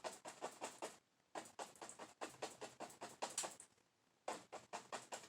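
Paintbrush dabbing and tapping paint onto canvas in rapid, light strokes, several a second, pausing briefly twice.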